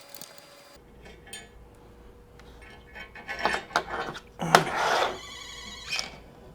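Small metal screws and a steel retainer plate clicking and scraping as the screws are backed out with a hex T-handle and lifted away, loudest about four and a half seconds in. A short rapid trill rings out just after.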